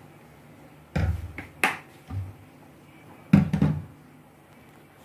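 A few short knocks and thumps from handling. One cluster comes about a second in and another just after three seconds, over a faint steady hum.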